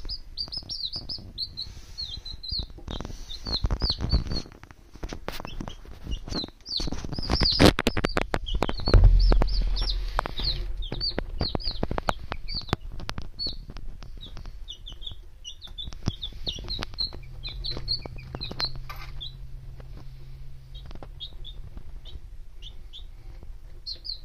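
Chicks peeping steadily, many short high peeps, thickest in the first half. Through the middle there is a run of sharp clicks and knocks, with a loud dull thump about nine seconds in.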